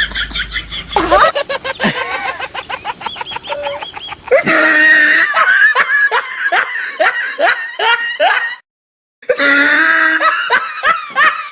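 Loud laughter in rapid repeated bursts, breaking off suddenly about eight and a half seconds in and then starting again.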